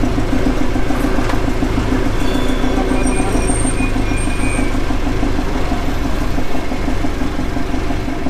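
Engine and road noise of a small utility vehicle driving in traffic, heard from its open, canopied rear bed: a steady low rumble and engine hum, with a few faint high squeaks about three to four seconds in.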